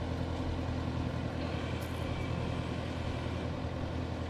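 Vintage fire engine's engine running steadily with a low hum, driving the turntable ladder as it is slowly lowered.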